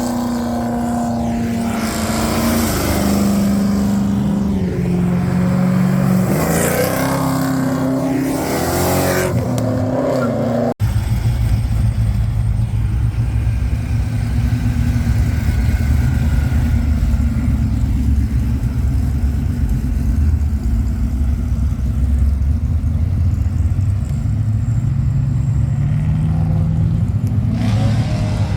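V8 muscle car engines: one revving up and down in repeated blips, then, after an abrupt cut, a deep steady rumble at low revs that starts to climb again near the end.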